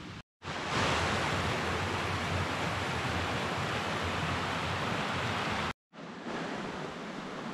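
Steady rush of a small brook's flowing water, broken by two abrupt cuts; after the second, about six seconds in, it carries on more quietly.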